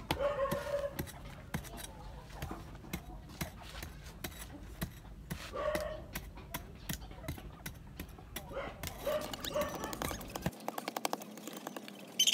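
Metal hand trowel digging into dry, sandy soil: a run of short knocks and scrapes as the blade strikes and works the dirt, with a few brief bits of voice.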